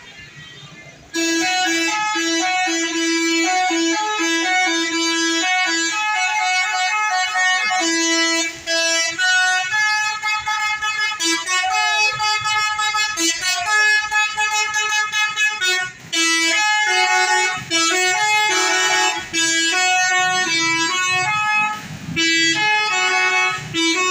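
Basuri multi-tone bus horn (the Indonesian 'telolet' horn) playing a tune in quick stepping notes. It starts loudly about a second in and runs on with only short breaks between phrases.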